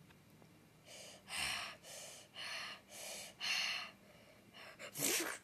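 A child panting quietly into the microphone, about six quick breaths half a second apart, then a louder gasping breath near the end.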